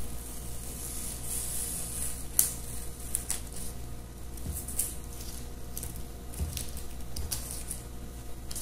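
Paper pattern pieces rustling and crinkling as they are handled and moved over a table, with a few sharp crackles of paper, the loudest about two and a half seconds in.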